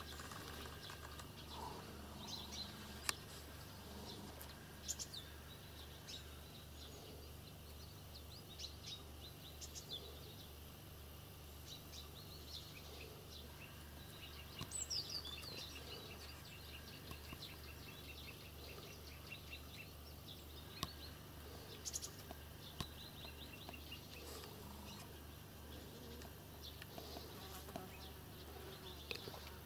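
Faint outdoor ambience of buzzing insects, with a few bird chirps. About halfway through comes a short high falling chirp and then a quick trill, and there are scattered small clicks and rustles.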